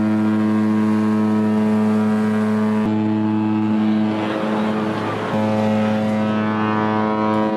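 Cruise ship's horn sounding long, deep blasts, with short breaks about three seconds in and again just past five seconds: a ship's horn signal at departure from the berth.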